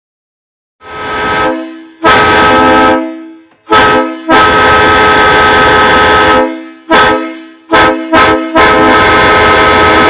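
Multi-note chime train horn sounding a chord in a string of blasts, some short and some held for two seconds or more, very loud.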